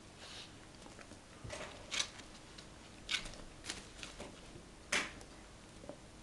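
Golden retriever chewing a piece of food, with several short, sharp crunching bites spread over a few seconds.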